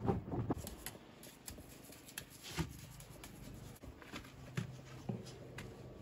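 Irregular light taps, clicks and scrapes, with a few sharper knocks about half a second in, near the middle and towards the end, over a faint steady low hum.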